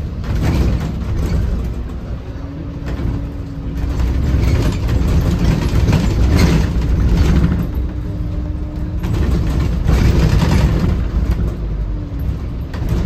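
Scania K280CB bus's DC09 five-cylinder diesel engine running under way, pulling harder twice, about four seconds in and again near ten seconds, with a steady whine in the easier stretches and scattered rattles.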